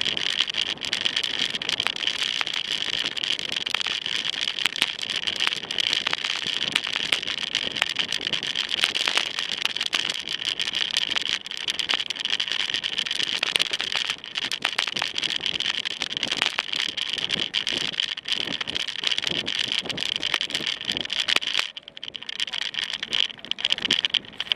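Mountain bike riding over a dirt and gravel trail: steady tyre noise with constant rattling and small knocks from the bike over the rough ground, dipping briefly twice near the end.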